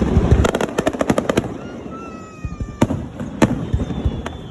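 Fireworks going off: a rapid run of crackling pops in the first second and a half, then two sharp bangs about half a second apart near the three-second mark. A slightly falling whistle-like tone sounds around two seconds in.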